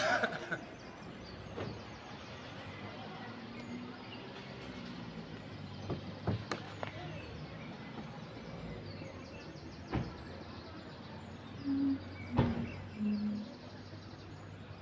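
Outdoor ambience: a steady low hiss with faint bird chirps, a few sharp clicks, and brief distant voices near the end.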